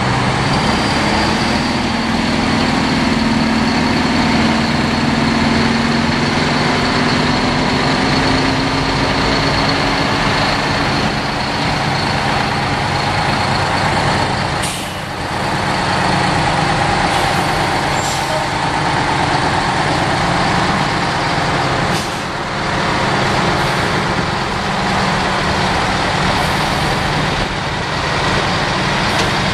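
Heavy diesel truck engines running as several big trucks, among them an FTF recovery truck, drive slowly past, with a few short air-brake hisses in the second half.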